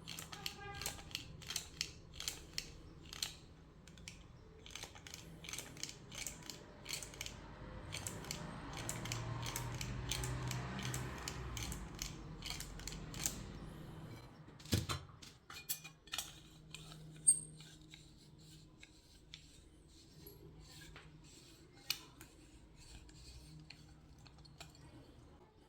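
Small metal parts of a door handle and lock clicking and rattling as they are handled, with a steadier, noisier stretch in the middle and a few sharper knocks after it.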